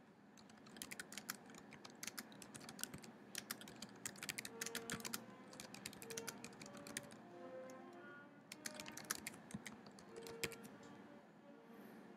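Typing on a computer keyboard: quick runs of key clicks starting about a second in, broken by short pauses, and stopping shortly before the end.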